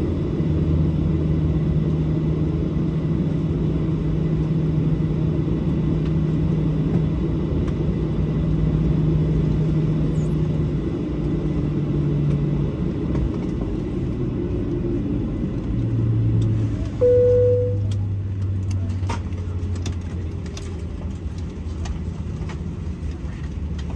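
Boeing 737-700 cabin noise: a steady low engine hum that shifts in pitch partway through. About 17 seconds in, a single short chime sounds, followed by scattered clicks and knocks over the last few seconds.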